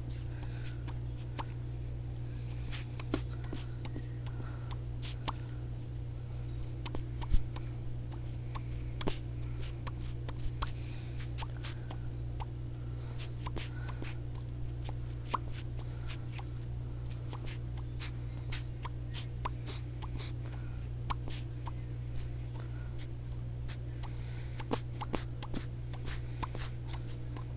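Scattered small clicks and faint squeaks from a child's cupped hands as he tries to make hand fart noises, over a steady low hum.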